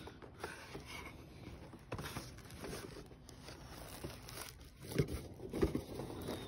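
Packaging being handled: plastic packing wrap and cardboard rustling and crinkling as a boxed set is lifted out of a shipping box, with a few sharper knocks in the second half.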